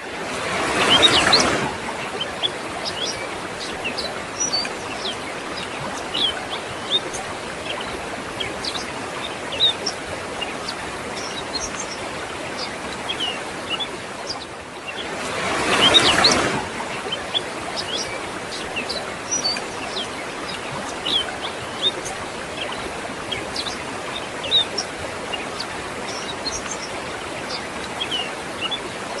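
Steady rushing of a waterfall with birds chirping throughout. The rushing swells louder briefly about a second in and again about halfway through.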